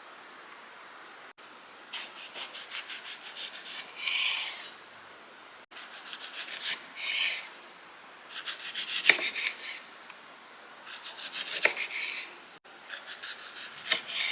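Knife working on food in short bursts of quick rasping strokes, several a second, heard in about five separate bursts.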